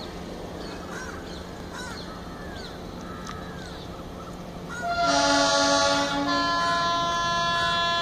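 WDP3A diesel locomotive's air horn: one chord blown for about a second, then straight into a second, different chord held for over two seconds. Before the horn, birds chirp over a faint steady hum.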